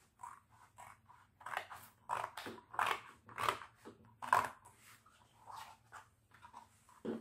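Scissors cutting through thin cereal-box cardboard: a run of irregular snips, loudest and closest together in the middle, thinning out towards the end. A short low thump comes near the end.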